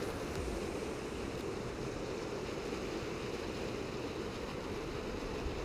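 Water gushing out of a concrete pond inlet and churning into the pond, a steady rushing roar.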